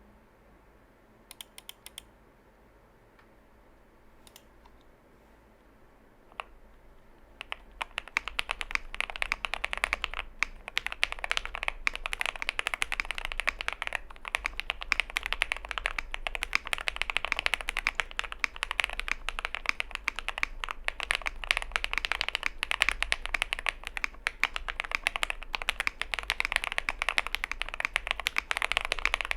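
Typing on a Zoom65 gasket-mount mechanical keyboard with lubed JWK linear switches, a PC plate and doubleshot PBT keycaps, a creamy, thocky sound. A few isolated key presses come first, then fast, continuous typing from about seven seconds in.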